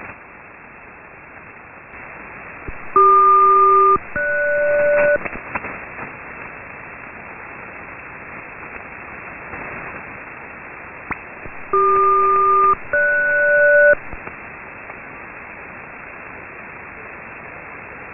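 HF single-sideband radio hiss carrying a SELCAL selective-calling signal, sent twice. Each call is two bursts of about a second, each burst two steady tones sounding together, the second pair higher than the first. It is the ground station's coded alert that unlocks one aircraft's receiver.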